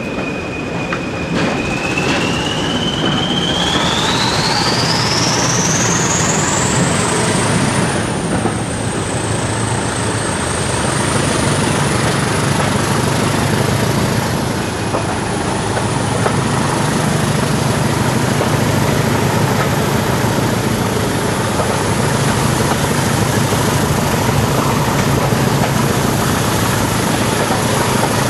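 Class 20 diesel locomotive's English Electric eight-cylinder engine working hard, heard from a coach window behind it, with its turbocharger whistle rising steeply in pitch over several seconds a couple of seconds in and then holding high as the locomotive powers away. Wheel and rail noise runs underneath.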